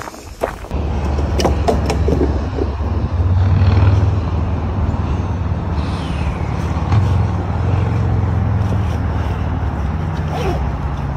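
A loud, steady low rumble starts about a second in and keeps going, with a few faint clicks near the start.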